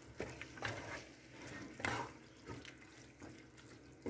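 Spatula stirring a wet onion-tomato masala in a metal pot: faint, irregular wet scraping strokes, the strongest a little before two seconds in.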